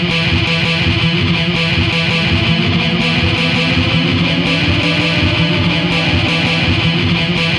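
Instrumental background music led by guitar, without singing.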